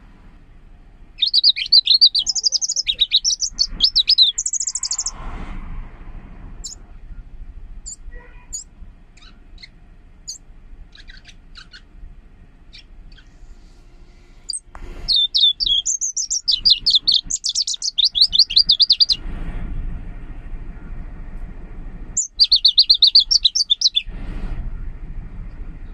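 Caged leaf warbler singing: three bursts of rapid, high trilled notes, the middle one the longest, with a few faint single notes in between.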